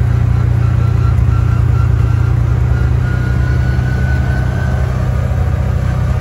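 Yamaha Wolverine R-Spec side-by-side engine running steadily while driving, with a faint high whine that drifts slightly in pitch over it.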